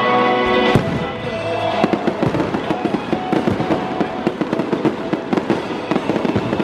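Victory fireworks going off: a sharp bang about a second in, then a dense run of rapid crackling pops.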